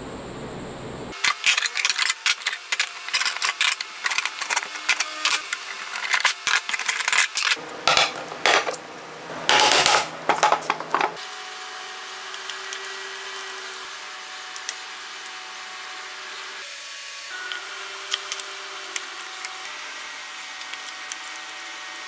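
Clear adhesive tape being pulled off the roll and pressed over the corners of a wooden dovetail box: quick crackling tears for about ten seconds, with a longer rip near the end of them, then quieter rubbing and a few light clicks as the tape is smoothed down.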